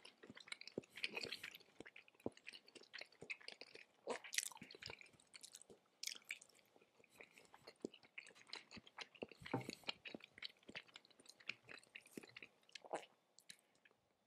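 Close-miked chewing of raw tuna sashimi: soft, irregular mouth clicks and chewing noises that thin out near the end.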